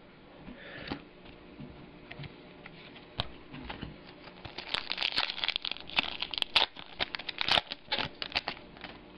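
Trading cards and their plastic packaging being handled: crinkling and rustling with quick clicks and taps, building up about three seconds in and thickest through the middle, then easing off near the end.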